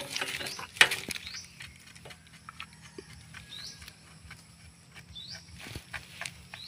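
Light clicks and taps of a hose fitting being handled on a power sprayer pump's brass manifold, the loudest a little under a second in. A bird repeats a short rising chirp about four times.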